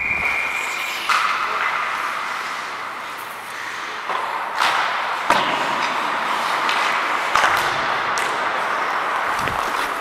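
Ice hockey play heard from on the ice: a hiss of skates on the ice, broken by several sharp clacks and thuds of sticks, puck and boards. A short steady high tone opens it.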